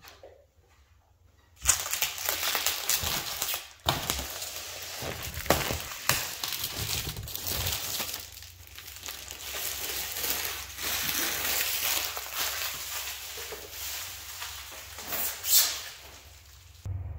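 Protective plastic film being peeled off an acrylic sheet and crumpled, an irregular crackling and crinkling with sharp spikes that starts about a second and a half in and runs until just before the end.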